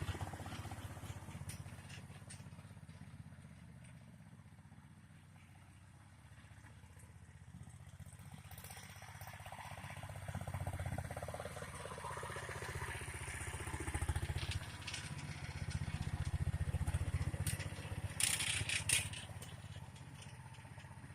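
Single-cylinder Honda GX-series engine of a homemade tractor running under way. Its sound fades as the tractor drives off and grows again as it comes back. A brief noisy burst comes near the end.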